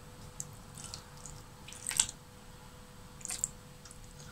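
Water poured in small amounts from a drinking glass into a bowl of crumbled curd cheese, heard as a few short trickles and splashes, the loudest about two seconds in.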